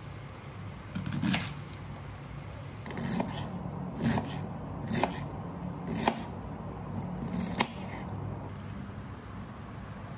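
Knife cutting through a wedge of raw cabbage on a wooden chopping board: about six crisp crunching cuts, each ending in a sharp knock of the blade on the board, roughly a second apart.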